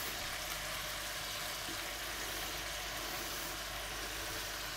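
Chicken pieces and freshly added sliced red onions frying in olive oil in a pan, a steady sizzling hiss with a low hum underneath.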